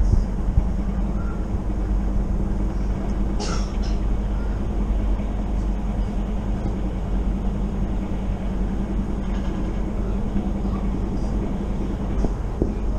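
Moving passenger train heard from inside the carriage: the steady rumble of the wheels on the track with a constant low hum, and a brief high squeak about three and a half seconds in.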